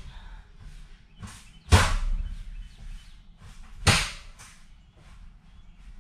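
Two loud bangs, about a second and a half in and again about four seconds in, each trailing off briefly, with lighter knocks between: a school bus passenger seat being knocked and worked loose from its mounting.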